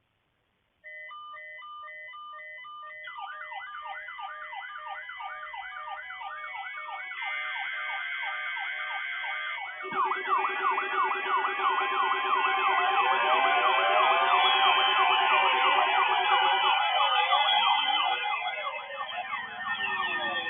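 Electronic alarm and siren tones laid over one another. Repeated beeps start about a second in, then rising-and-falling warbling tones join and thicken. A steady low tone comes in about halfway, and the whole mass grows louder toward the end.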